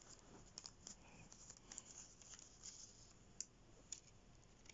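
Faint paper handling: a few soft rustles and light ticks as stickers are slid out of a paper bag.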